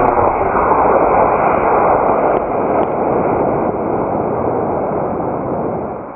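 E-class model rocket motor firing at liftoff: a loud, steady rushing roar that fades over the last second or so as the motor burns out and the rocket climbs away.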